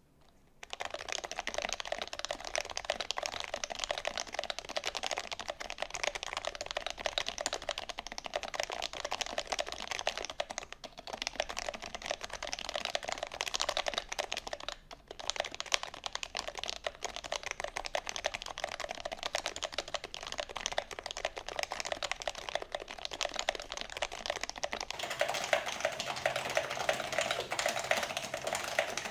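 Fast continuous typing on a Taycan Type-EV custom keyboard with Topre switches, an aluminium plate and HHKB stabilizers, keystrokes clattering in a dense run. The typing briefly pauses twice and grows louder near the end.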